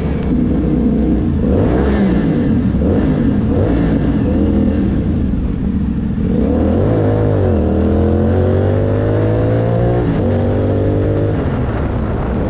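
CFMoto 450 motorcycle's parallel-twin engine running through a new aftermarket exhaust with the dB killer removed. The revs rise and fall in the first half, then the note climbs steadily under acceleration, dips briefly at a gear change about ten seconds in, and climbs again.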